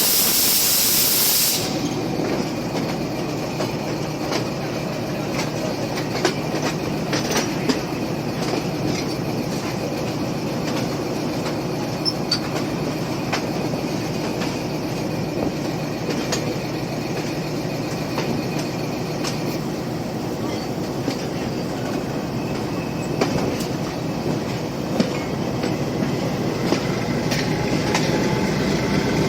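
Diesel train running on the rails: a steady rumble with a low engine drone and wheels clicking over rail joints throughout. At the very start there is a loud hiss lasting under two seconds.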